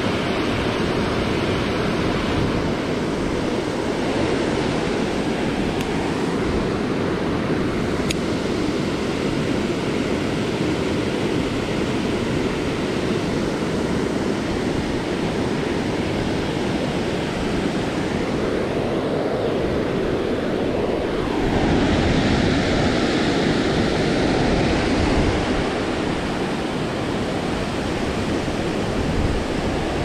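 Steady rush of the Shenandoah River's current over rocks, a little louder and brighter from about two-thirds of the way in.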